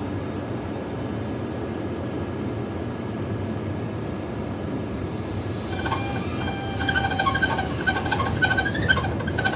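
Tram running along street track with a steady rumble. From about six seconds in, a high flickering squeal from the wheels joins in and grows slightly louder.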